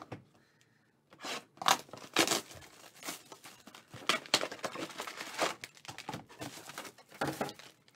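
Cellophane shrink wrap being torn off a trading-card box and crinkled in the hands: a quick run of irregular rips and crackles starting about a second in.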